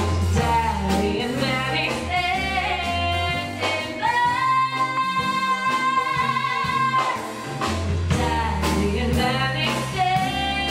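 A woman singing over a band accompaniment with bass and percussion, holding one long note for about three seconds in the middle before the melody moves on.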